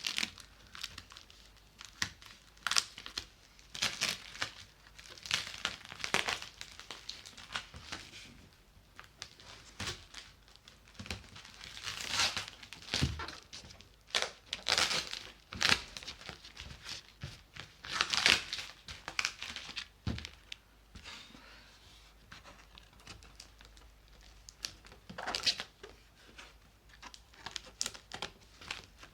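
A large cardboard parcel being torn open by hand: irregular ripping and crinkling of tape and packaging in short bursts, with brief pauses between them.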